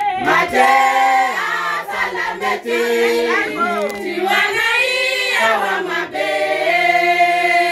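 A group of women singing together in chorus, with long held notes and no spoken words.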